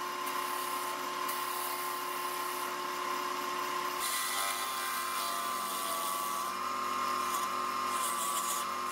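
Wood lathe running with a steady whine while a small round carbide tool takes light cuts on a spinning mesquite vase, giving a hiss of cutting over the motor.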